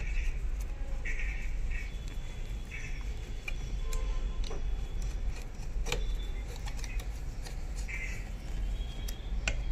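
A few sharp metallic clicks and taps from a screwdriver working the screws of a sewing machine's shuttle hook assembly, over a low steady hum, with faint music in the background.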